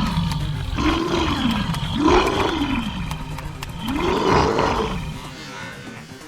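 A person making four drawn-out play roars for a toy shark, each rising and then falling in pitch, the last one longest, before they die away.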